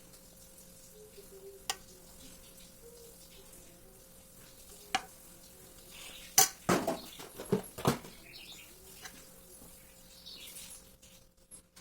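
Kitchen utensils knocking and clinking against dishes and pans: a couple of single clicks, then a burst of clattering about six to eight seconds in.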